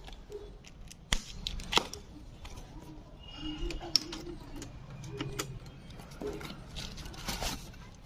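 A delivery parcel being handled and opened: sharp clicks and knocks, loudest a second or so in and again about four seconds in, over plastic and cardboard rustling.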